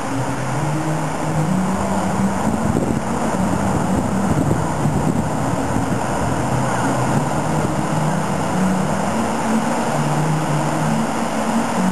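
Small waves breaking and washing up the beach in a steady wash of surf, with a low hum underneath that shifts in pitch every second or so.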